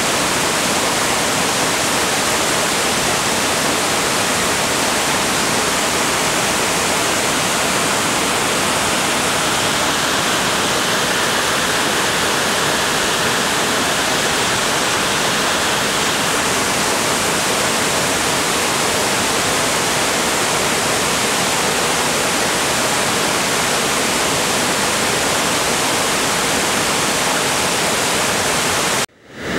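Barron Falls in flood: a torrent of floodwater pouring over rocks and crashing into spray, a loud, steady rushing. It breaks off for a moment near the end.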